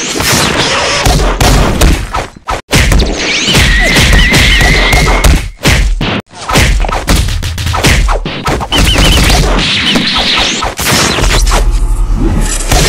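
Dense run of fight sound effects: quick punch and kick impacts, thuds, crashes and booms following one another with barely a pause. There are two very short gaps, about two and a half and six seconds in.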